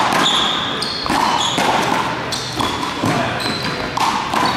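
One-wall handball rally: the small rubber ball smacked by gloved hands and hitting the wall and floor in several sharp smacks, with trainers squeaking in short high chirps on the sports hall floor.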